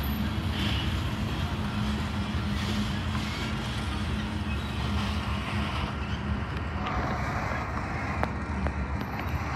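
Low, steady engine rumble with a droning hum that fades out about two-thirds of the way through.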